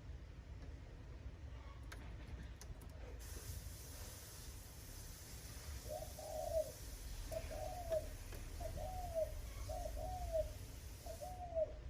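Spotted dove cooing: five short, arched coos about a second apart, starting about halfway in, over a steady low rumble.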